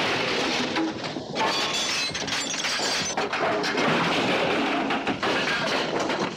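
Film fight sound effects: a sudden loud crash as a body slams into stacked wooden sign frames, then continuous smashing and clattering of breaking wood and glass.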